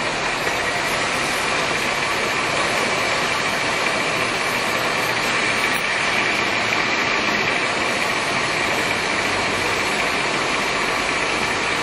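Leblond Servo Shift engine lathe running, giving a steady machine hum with a constant high-pitched whine.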